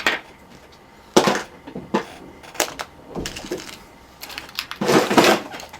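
Irregular clicks, knocks and rustling of small objects and tools being handled and set down on a workbench, with a longer rustling scrape about four to five and a half seconds in.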